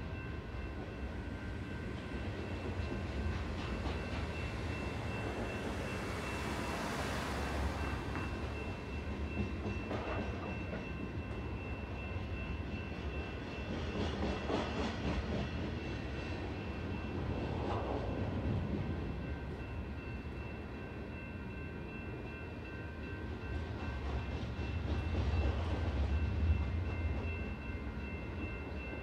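Freight train of dirt-hauling gondola cars rolling through a grade crossing: a steady low rumble that swells and fades a few times, with a thin steady high tone above it.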